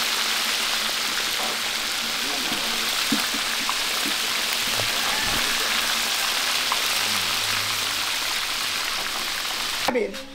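Hot oil sizzling steadily in a large frying pot. The sizzle cuts off suddenly just before the end.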